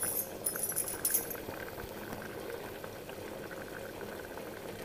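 A pot of chana dal and vegetable curry under a perforated steel lid, bubbling steadily as it boils. A few brief high hisses come in the first second or so.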